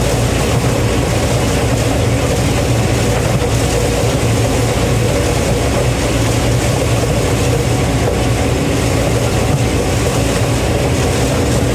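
Combine harvester running at a steady working load: a constant low engine hum under a dense wash of mechanical and threshing noise.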